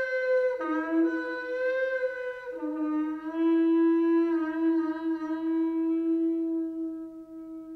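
Music: a wind instrument playing long held notes. It steps down in pitch about half a second in and again at two and a half seconds, then holds one low note.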